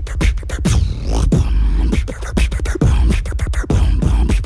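Beatboxing: rapid mouth clicks and pops, in the style of a bone-cracking sound effect, over a backing beat with a steady heavy bass.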